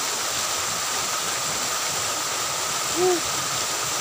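Small waterfall pouring steadily into a ditch pool, a constant rushing of water. About three seconds in, a brief voiced 'hm' rises and falls in pitch.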